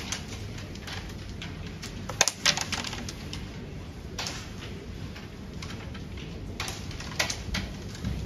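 Carrom break shot: the striker is flicked into the centre pack of wooden carrom coins, a sharp clack and scatter of coins about two seconds in. A few lighter clicks follow.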